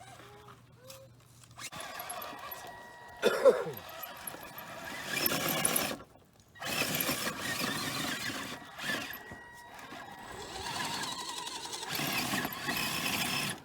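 Gmade GS02 BOM RC crawler's electric motor and gears whining in repeated throttle bursts of a second or two, with the tyres working over loose dirt. A short, loud squeal falls in pitch about three and a half seconds in.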